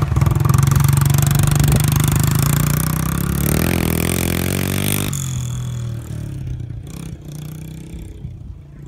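Honda CRF70 pit bike's small four-stroke single-cylinder engine revving hard close by, its pitch swinging up and down about three and a half to five seconds in. Near five seconds it suddenly loses its bright edge and then fades as the bike rides away.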